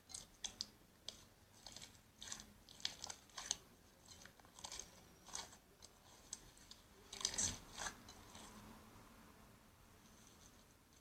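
Faint, irregular crunchy crackling and clicking of slime being squeezed and pressed, as heard in slime ASMR videos; the loudest cluster comes about seven seconds in, and it dies away to near silence after about nine seconds.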